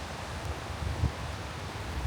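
Strong blizzard wind buffeting the microphone as a steady, uneven low rumble over a hiss of blowing snow and air, with one sharper low thump about a second in.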